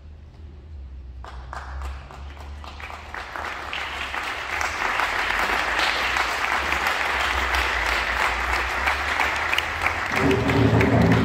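Audience applauding: a few scattered claps about a second in, building into steady, dense applause. Near the end a voice rises over the clapping.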